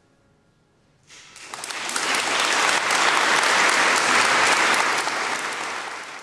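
Audience applauding: clapping breaks out about a second in, swells to a full round of applause, then thins out near the end.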